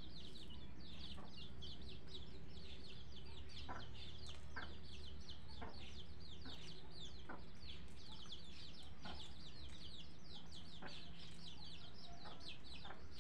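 Many small birds chirping continuously: a dense run of rapid, high, short falling chirps.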